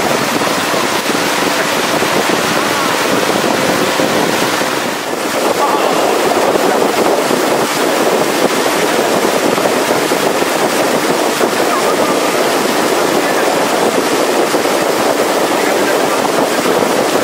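Motorboat under way on a river: steady engine noise mixed with water rushing past the hull and wind on the microphone, dipping briefly about five seconds in.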